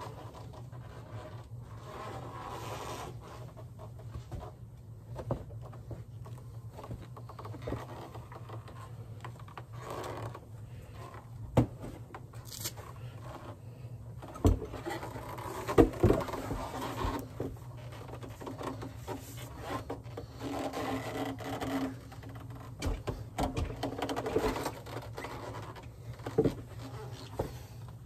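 Scraping, rubbing and scattered knocks of things being handled, over a steady low hum. The sharpest knocks come about halfway through.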